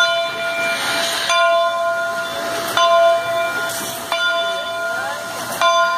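Steam locomotive bell on Canadian Pacific 2-8-0 No. 3716 ringing steadily, struck about once every second and a half, each stroke ringing on. There is a burst of steam hiss about a second in.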